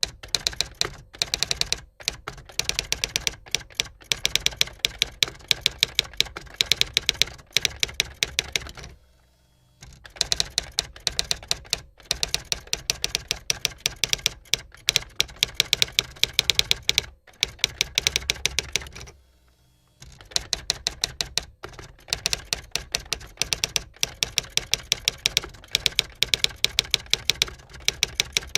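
Typewriter keys being struck in fast, continuous runs of sharp clacks. The runs break off twice for about a second, roughly a third and two-thirds of the way through.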